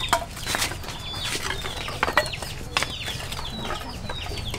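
Chickens clucking and cheeping in repeated short, high, falling chirps, with a few sharp knocks.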